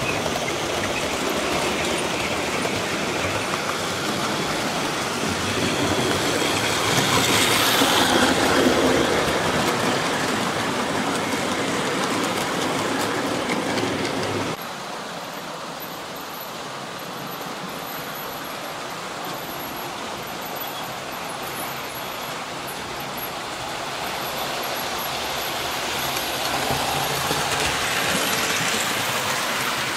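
00 gauge model trains running on the layout: a steady running noise of small locomotive motors and wheels on the track. It swells a little about a quarter of the way in and drops suddenly in level about halfway through.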